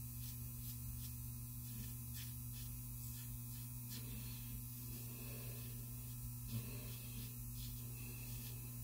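Faint strokes of a Blackland Vector single-edge razor scraping through lathered stubble, coming and going over a steady low electrical hum.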